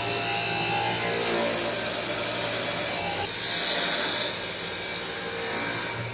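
Two-axis CNC wood lathe turning a wooden workpiece: a steady motor hum under the hiss of the cutter shaving wood, the cutting sound shifting a little about halfway through.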